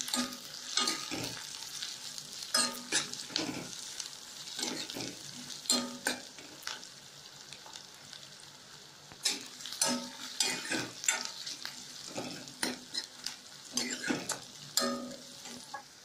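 Sliced onions sizzling in oil in a metal kadai while a metal ladle stirs them, scraping and clinking against the pan at irregular intervals, as the onions are sautéed until soft.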